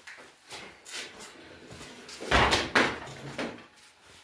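Knocks and clatter of metal gas stove parts being handled. There are light taps, then two loud knocks close together about two and a half seconds in.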